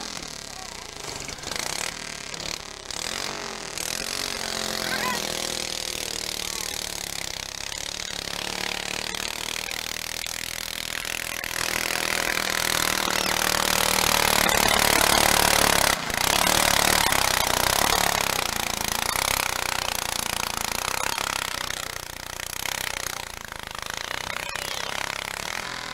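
Pulling garden tractor's engine running at full throttle as it drags a weight-transfer sled down the track. It revs up over the first several seconds, then runs hard under load and is loudest around the middle of the pull.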